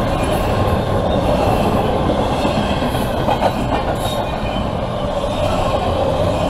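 Double-stack intermodal well cars of a CSX freight train rolling steadily past: a continuous rumble of steel wheels on rail with a faint high wheel squeal and an occasional click of wheels over rail joints.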